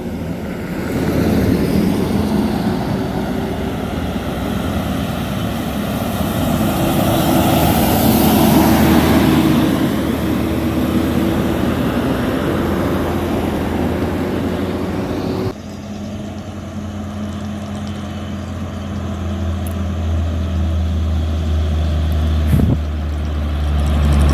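Motor vehicle engine and road noise on a highway. The noise swells about a third of the way in and changes abruptly about two-thirds through to a steady low engine drone that grows louder near the end.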